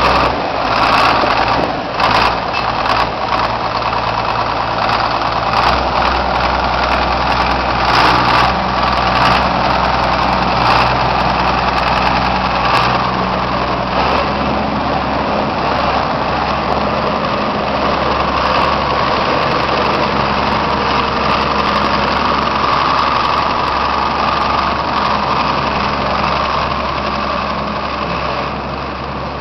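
John Deere 4960 tractor's six-cylinder diesel engine idling steadily, with scattered clicks and knocks over the first half and a slight change in the engine note about halfway.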